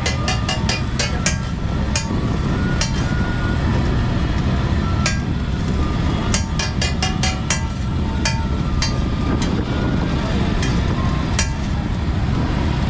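Steel spatula clacking and scraping on a large flat griddle while working frying eggs, in quick runs of sharp metallic clicks and single strikes that ring briefly. A steady low rumble lies underneath.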